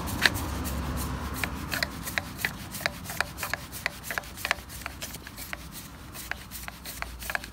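Plastic screw-in intake air filter being turned by hand into an air compressor's cylinder head: its plastic threads and housing rub and click, a few irregular sharp clicks a second.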